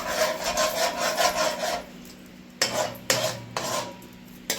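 A spoon scraping and stirring the bottom of a cooking pot where brown sugar is browning in oil. Quick rasping strokes run for about two seconds, then a few separate single scrapes follow.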